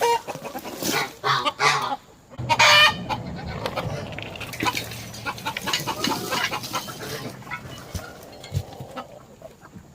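Chickens clucking, with one louder call about two and a half seconds in.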